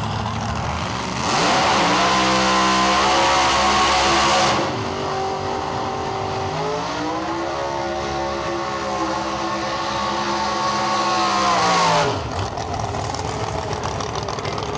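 Drag-race car doing a burnout: engine held at high revs with the hiss of spinning tyres for about three seconds, then revved up again and held steady for about five seconds before it drops off suddenly.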